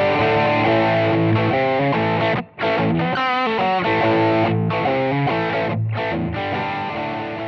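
Electric guitar played through an overdrive pedal: a distorted riff of notes and chords, with a brief break about two and a half seconds in, a wavering bent note just after, and the sound fading out near the end.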